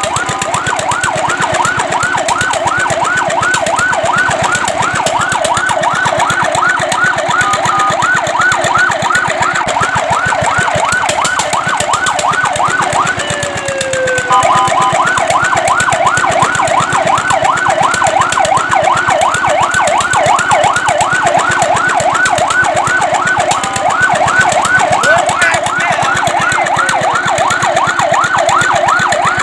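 Fire truck's electronic siren on a rapid yelp, its pitch sweeping up and down several times a second. About halfway through it breaks off for a moment with a short falling tone, then starts again slightly louder.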